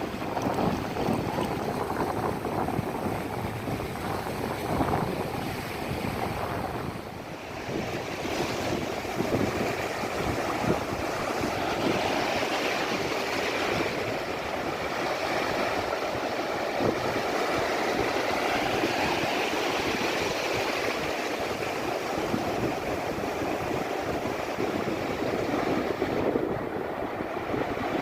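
Sea waves breaking and washing up a beach, a steady rush of surf that eases briefly about seven seconds in before building again.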